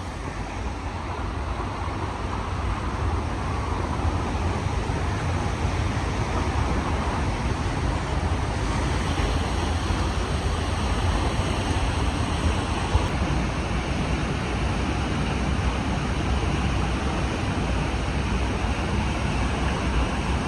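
Powerful waterfall, a cataract, pouring into a pool: a steady rush of falling water that grows a little louder over the first few seconds and then holds.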